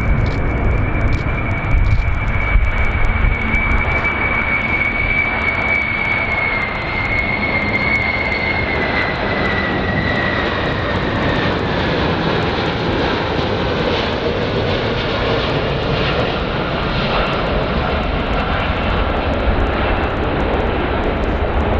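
Boeing VC-25A (747-200) jet on landing approach, its four turbofan engines running with steady noise and a high whine that slowly falls in pitch as it passes.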